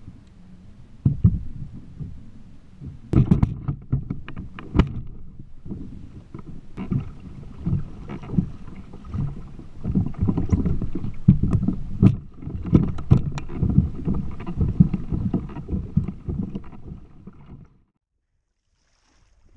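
Choppy water slapping and knocking against a kayak hull in irregular low thumps, with wind on the microphone and a few sharp knocks. The sound cuts off suddenly near the end.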